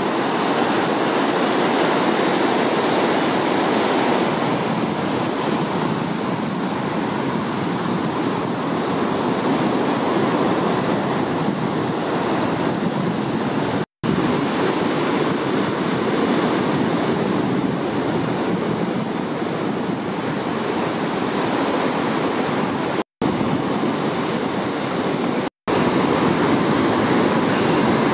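Ocean surf breaking and washing in, a steady, loud wash of water noise. The sound cuts out to silence for an instant three times, about halfway through and twice near the end.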